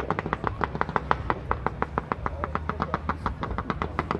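Fireworks going off in a rapid barrage: a dense run of sharp pops and cracks, roughly eight to ten a second, without a break.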